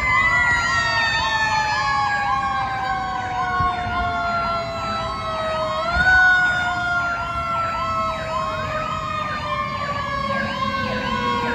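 Fire apparatus sirens sounding together. One is a long wail that slowly falls in pitch, jumps back up about six seconds in and falls again. Over it runs a fast yelp, rising and falling about twice a second.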